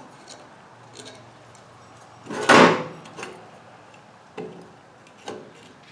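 Metal parts of an electric PTO clutch being handled and fitted together: a few light clinks and taps, with one louder, longer metal clunk about two and a half seconds in, then a few more single knocks.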